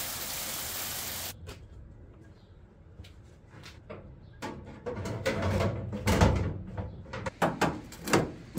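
Hail falling as a steady hiss that cuts off abruptly about a second in. Then a series of knocks, clanks and clicks as a car's sheet-metal quarter panel is handled and clamped with locking pliers, loudest near the end.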